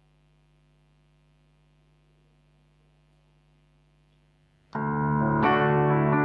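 Near silence with a faint steady hum, then a grand piano starts playing near the end, striking a new note or chord roughly every half second.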